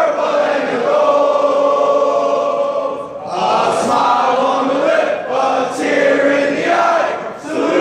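A crowd of teenage boys singing their school's alma mater together in long held phrases, with a brief break about three seconds in and another near the end.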